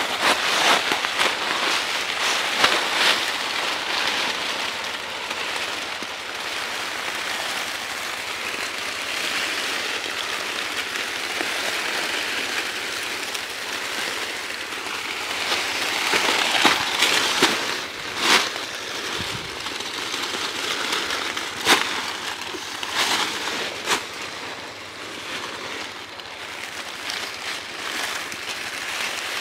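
Dry leaves rustling and crunching as a deer carcass is winched across the forest floor. The sound rises and falls in waves, with a few sharp cracks in the second half.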